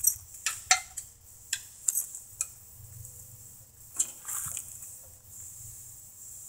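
Light metallic clicks and taps of hand tools against a small lawn-tractor engine, about six in the first two and a half seconds and one more about four seconds in.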